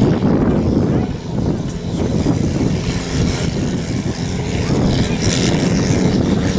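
Garden pulling tractor's engine running hard under full load as it drags the weight sled, loud and steady with a brief dip about a second in; the front wheels lift off the ground during the pull.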